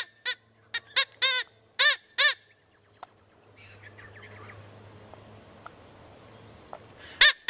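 Short, harsh animal calls, several a second, each arching up and down in pitch. The calls stop after about two seconds, leaving a faint hiss and a low hum, and start again near the end.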